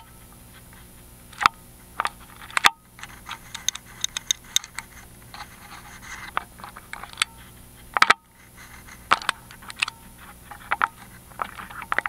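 Lock pick probing the magnetic spool pins of a Miwa EC cylinder lock under tension: irregular small metallic clicks and scrapes from inside the keyway.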